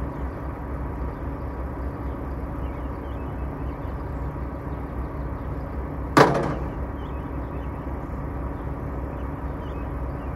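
Semi truck's diesel engine idling steadily with a low hum. About six seconds in, a single sharp bang rings out and dies away within a second.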